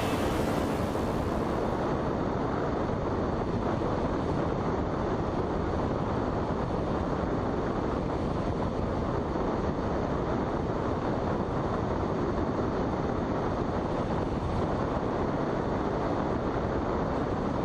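Steady in-flight noise during an aerotow behind a Cessna tow plane: an even rush of airflow and engine drone that holds constant throughout.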